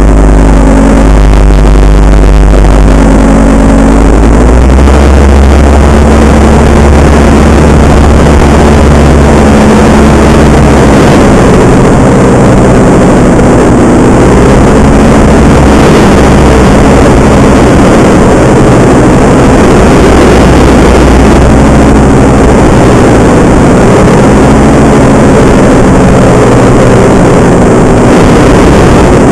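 Paramotor engine and propeller running loud and close, the engine note shifting in pitch several times.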